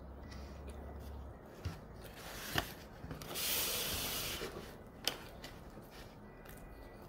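Black plastic sushi takeout tray scraping and rustling for about a second as it is slid across the table, set between a few sharp clicks from handling wooden chopsticks.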